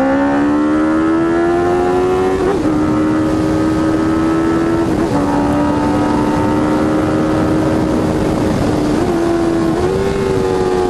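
Honda CB650F's inline-four engine running through an aftermarket Jeskap GP2 R exhaust while the bike is ridden. The note rises over the first couple of seconds, then holds fairly steady with brief breaks about two and a half, five and nine seconds in, over rushing wind.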